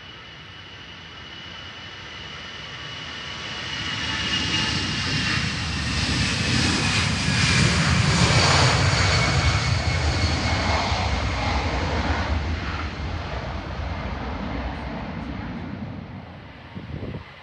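Airliner flying past overhead. Its engine noise builds to a peak about halfway through and then fades, with a high whine that slides down in pitch as it passes. Two short knocks come near the end.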